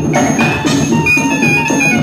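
Orchestral film score playing an instrumental passage: a steady percussion beat under short, high, chiming notes.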